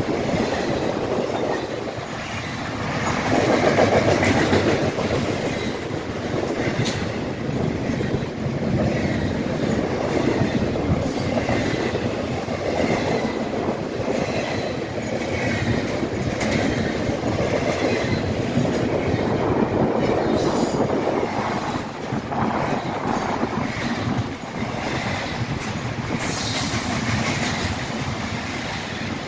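A freight train's cars rolling past, wheels clattering steadily over the rail joints, with a brief high squeal near the end.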